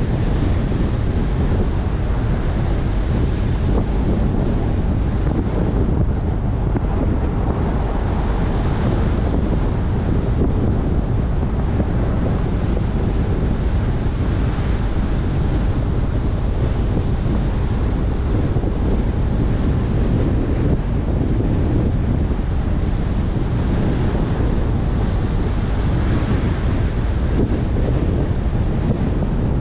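Steady wind rush on a car-mounted microphone over the low, continuous rumble of tyres on the road as the car drives along at an even speed.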